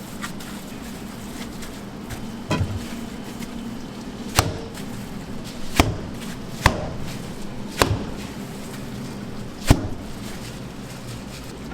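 A kitchen knife chopping down onto a cutting board, about six sharp strikes at uneven intervals, over a steady low kitchen hum.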